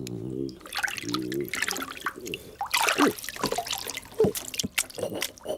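Water splashing and dripping, with a few quick downward-sliding tones in the middle.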